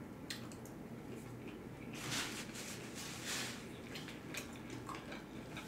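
Faint chewing and mouth sounds of a person eating a fried chicken nugget, with soft wet smacks about two and three seconds in.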